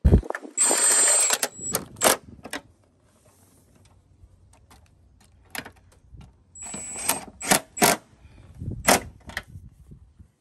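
Hand tools working on a car's front fender fasteners: a loud rattling burst about a second long at the start, then a scatter of separate sharp ratchet-like clicks and metal knocks.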